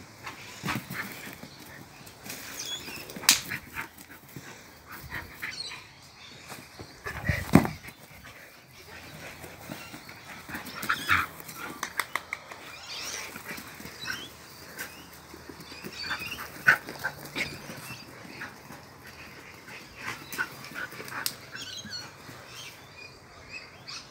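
A dog at play: scattered short dog noises and scuffles, with a few sharper, louder sounds about three, seven and seventeen seconds in.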